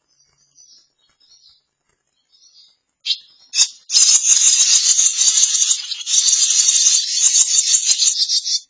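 Barn swallow nestlings begging as a parent comes to feed them: a few faint chirps at first, then from about four seconds in a loud, dense, rapid high-pitched chorus of begging calls that stops abruptly just before the end.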